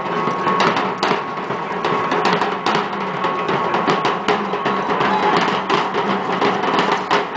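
Large hand-carried drums beating a steady rhythm in a Chichimeca dancers' street procession.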